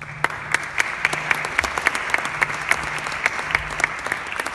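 Audience applauding: many hands clapping, starting abruptly and holding steady.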